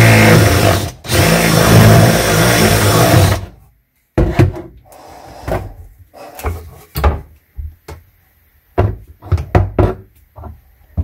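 Cordless drill running at full speed for about three and a half seconds, stopping briefly about a second in, then cutting off. After that come a series of short knocks and taps as the drill is set down on the shelf and things are handled inside the cabinet.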